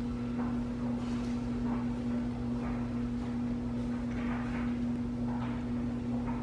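A steady mechanical hum at one even pitch over a low drone, with faint brief soft noises now and then.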